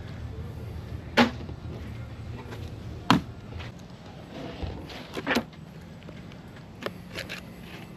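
Wet slaps and knocks of whole red snapper and carcasses being flipped, dropped and laid down on a plastic fish-cleaning table, about five sharp hits a second or two apart, with a double hit around the middle.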